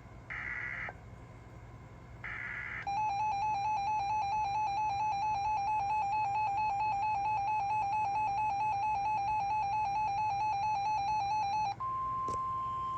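NOAA Weather Radio emergency alert signalling: three short bursts of SAME digital data tones, then a rapidly pulsing alert beep for about nine seconds. It is followed near the end by the steady 1050 Hz warning alarm tone that precedes a warning message.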